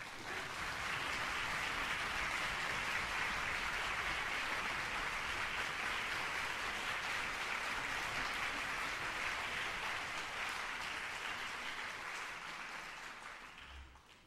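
Concert-hall audience applauding steadily, greeting the conductor's entrance, dying away over the last two seconds.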